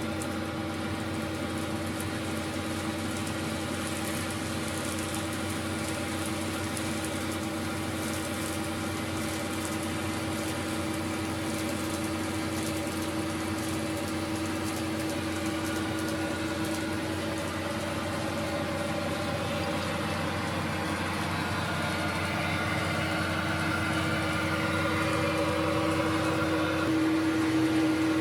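Simulated diesel engine sound of a KiHa 58 railcar, with its DMH17H engine, played by a KATO Sound Box through a small speaker: a steady engine drone that grows louder over the last few seconds.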